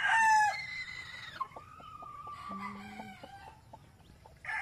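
Domestic roosters crowing. One crow ends about half a second in, a fainter drawn-out call and short clucks follow, and another loud crow starts right at the end.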